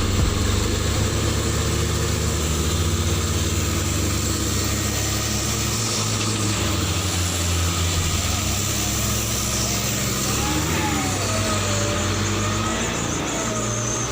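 Truck engine running steadily, with a faint wavering tone about ten seconds in.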